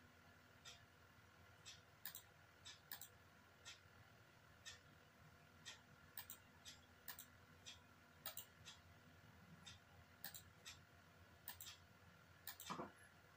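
Faint, irregular clicking of a computer mouse as chess pieces are moved on screen, some clicks coming as quick press-and-release pairs, with a soft, lower knock near the end.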